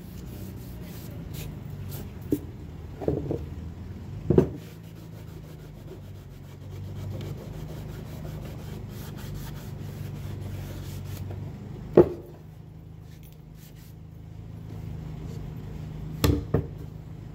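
Wet cloth rubbing over pine boards, wiping away glue squeeze-out, over a steady low hum. A few sharp wooden knocks as the box is handled, the loudest about four seconds in and about twelve seconds in, and two more close together near the end.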